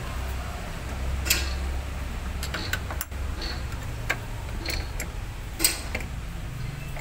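Scattered sharp clicks and light taps from hands working the fittings of a truck's fuel water separator, about eight in all at uneven spacing, over a low steady hum.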